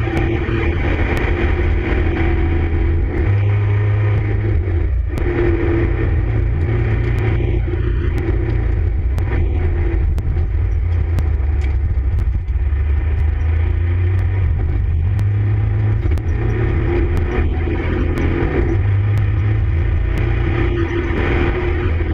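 Tuned 260 PS VW Golf V TDI race car's diesel engine running hard under load, heard from inside the stripped cabin. The engine note steps up and down several times as the car accelerates and slows through the corners.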